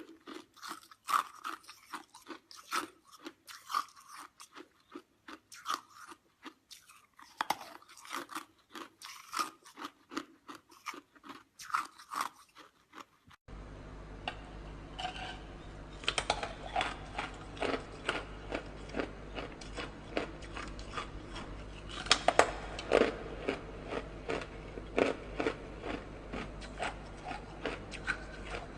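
Ice being crunched and chewed close to the microphone, a dense run of sharp crunches. About halfway through, the recording cuts to another with a steady low hum behind the crunching.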